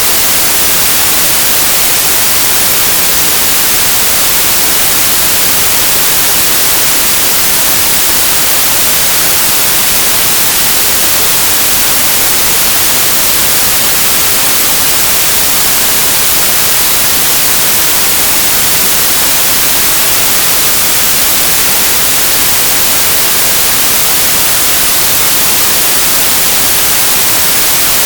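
Loud, steady static hiss, strongest in the high end, with nothing else heard over it.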